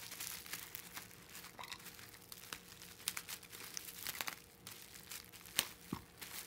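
Plastic bubble wrap crinkling and crackling as hands unwrap a package sealed with packing tape. The rustling is irregular, with one sharper crackle about five and a half seconds in.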